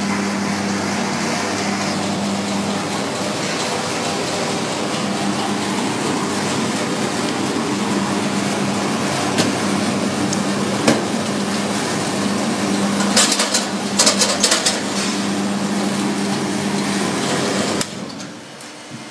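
Small belt-driven peanut roasting machine running: a steady whirring noise with a low hum, broken by a few sharp knocks and a short stretch of rattling clatter. The running noise drops off sharply near the end.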